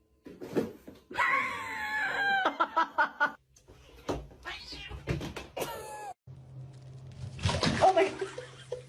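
Cat meowing and yowling: one long wavering cry, then shorter falling meows, in short clips that cut abruptly from one to the next.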